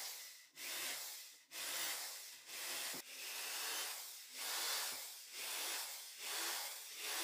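Cordless drill boring into plywood in short repeated bursts, about one a second, with brief pauses between them.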